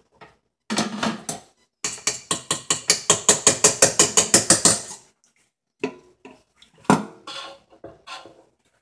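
A spatula knocking and scraping against mixing bowls as meringue is scooped and mixed: a fast, even run of clicks, about eight a second for some three seconds, with a few scattered knocks before and after.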